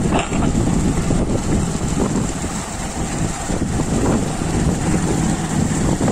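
Wind buffeting the phone's microphone: a steady, loud low rumble with irregular gusty flutter.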